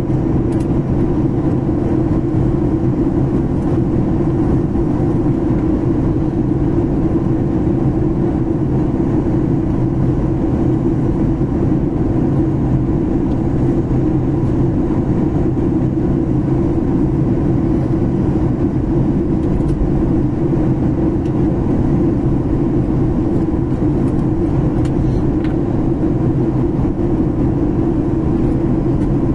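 Steady airliner cabin noise during the descent before landing: a constant low rumble of engines and airflow with a steady hum in it.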